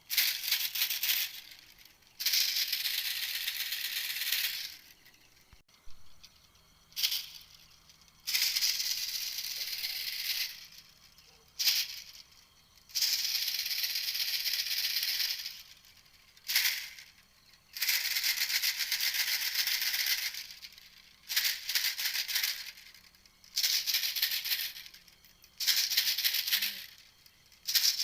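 Recorded lure call of the 'ตอกติวเม็ดแตง' (tok-tiw met-taeng), a dry, high rattling chatter repeated over and over. Each call lasts from under a second to about three seconds, with short pauses between them.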